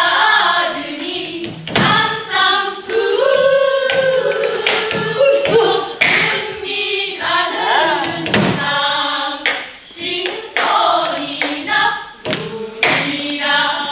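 A group of women singing a Korean folk song in unison, with long, bending held notes, accompanied by irregular sharp strokes on a Korean drum.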